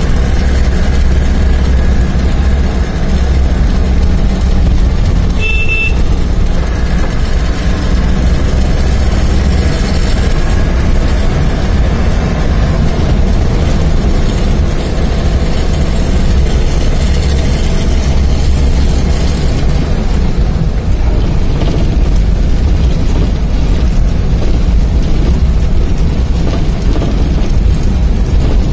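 Steady engine and road rumble of a moving vehicle heard from inside its cabin, with a short horn toot about five and a half seconds in.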